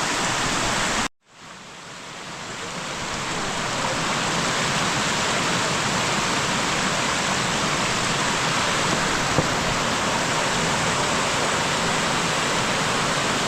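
Waterfall rushing steadily. About a second in the sound cuts out briefly and fades back up over a few seconds.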